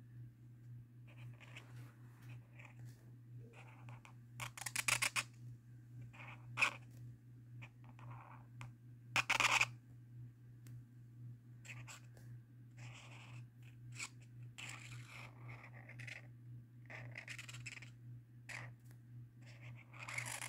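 Marker tip scratching over sketchbook paper in short, irregular strokes, a few of them louder, over a steady low hum.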